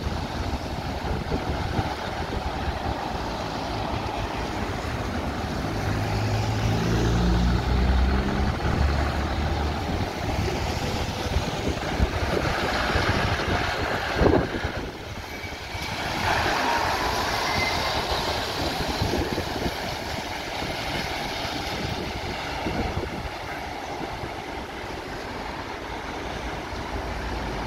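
Scania articulated lorry's diesel engine pulling away and accelerating, its note rising in steps around six to nine seconds in, then passing close with road noise on the wet surface. A brief sharp knock about fourteen seconds in, with general traffic and wind noise around.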